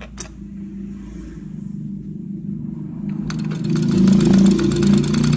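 An old overlock sewing machine starts up with a click; its motor hum rises as it gets up to speed, and about three seconds in it is stitching fabric with a rapid, even ticking. This is a test seam after the lower looper thread tension was loosened.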